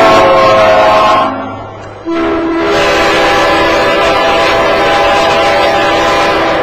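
Locomotive air horns blowing multi-note chords: one blast fades out about a second in, and after a short gap a second blast with a lower chord starts and is held to the end.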